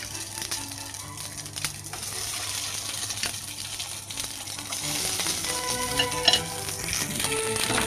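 Takoyaki frying in salad oil in a frying pan: a steady sizzle with scattered small clicks and clatters.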